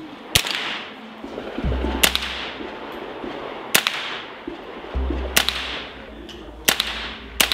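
Chiappa M4 .22 LR semi-automatic rifle firing six single shots, about one every second and a half, each a sharp crack with a short echo. It is fired with a suppressor and subsonic ammunition.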